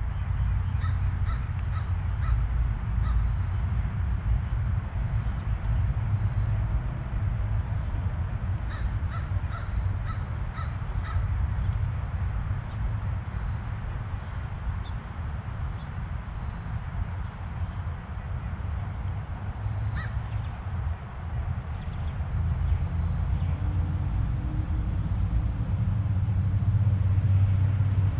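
Blue jays giving harsh, crow-like calls, in short clusters, over a steady low rumble, with quick high-pitched ticks throughout.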